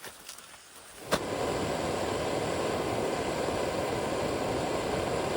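Backpacking stove being lit with a click about a second in, then its burner running with a steady hiss.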